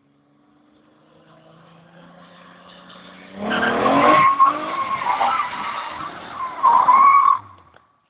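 A Nissan 300ZX's V6 engine growing louder, then its tyres squealing and skidding as the car slides sideways across wet asphalt for about four seconds before the sound cuts off.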